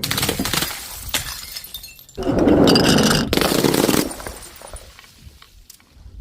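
Glass bottles shattering: a crash at the start that trails off in clinking shards, then a second, longer smash about two seconds in that fades out over the following seconds.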